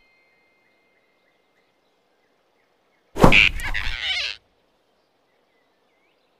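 A sudden cartoon grab about three seconds in, with a thump and a short, high startled squeal from the animated flying squirrel as the giant rabbit snatches it by the neck. It lasts just over a second.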